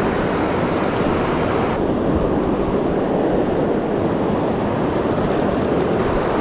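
Fast mountain river rushing through whitewater rapids close by, a loud, steady wash of water noise that dulls slightly in its upper hiss about two seconds in.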